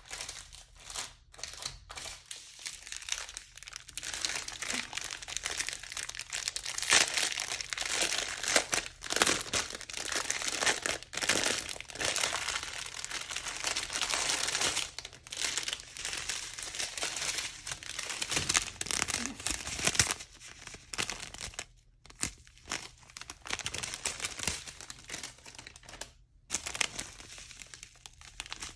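Small plastic bags of diamond-painting drills crinkling as they are handled and sorted one by one. The crackling is busiest in the first half and has short pauses later on.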